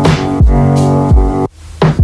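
Electronic dance music with a heavy kick drum and held synth chords. The music cuts out about one and a half seconds in, then a short sweep leads back in.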